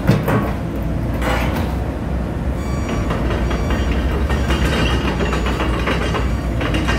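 Komatsu PC78US excavator's diesel engine running with a steady low drone. There is a sharp metal clank just after the start and another about a second in, then a continuous rattling clatter through the rest.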